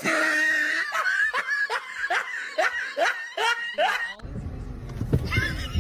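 A person laughing in a quick run of short bursts, about three a second, for about four seconds, then breaking off abruptly.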